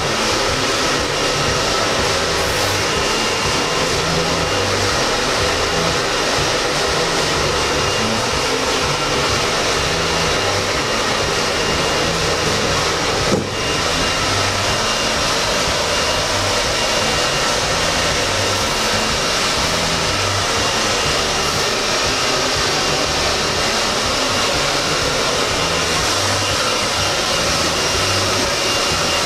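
Handheld hair dryer blowing steadily while hair is being styled, with a brief break about thirteen seconds in.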